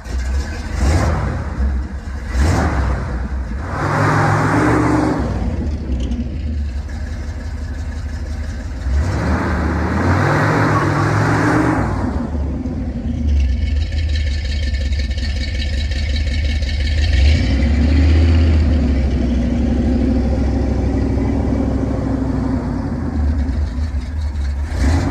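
Engine of a 1970s Ford F-250 pickup running, revved up and let back down about three times in the first twelve seconds, then settling to a steady run.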